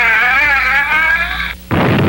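A high wavering tone that breaks off, then, after a brief gap near the end, a sudden loud explosion blast begins.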